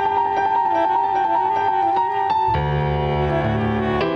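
Free-improvised jazz duo of tenor saxophone and Nord Stage keyboard. The saxophone holds a long, wavering high note. About two and a half seconds in, the keyboard enters with a low sustained chord, and another chord sounds near the end.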